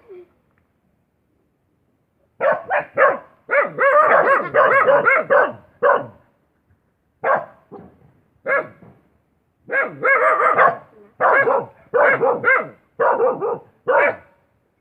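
Dog barking in short repeated barks, starting about two seconds in, with a rapid run of overlapping barks soon after and another quick series near the end.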